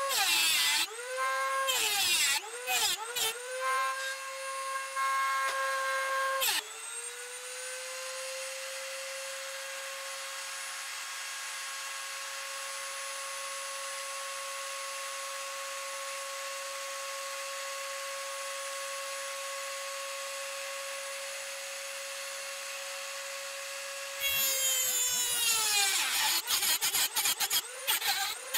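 Dremel rotary tool with a metal cut-off wheel grinding into a metal T-nut blank: loud grinding, with the motor's high whine dipping in pitch each time the wheel bites. After about six seconds the tool runs free with a steady high whine, and the grinding starts again a few seconds before the end.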